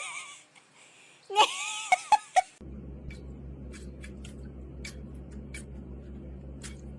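A person laughs briefly with a few sharp clicks. About two and a half seconds in, this gives way to a steady low hum with faint scattered ticks.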